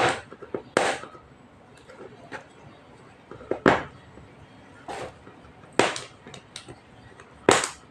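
A cardboard product box being opened by hand: about six short, sharp rustles and scrapes of cardboard and packaging, at irregular intervals, with a few smaller ticks between.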